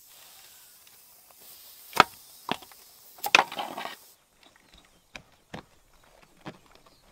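Car tyre rolling onto a wooden board studded with nails, with sharp wooden cracks and snaps as the board and nails take the weight. The loudest cracks come about two and three seconds in, with a burst of crackling after the third, then scattered lighter clicks.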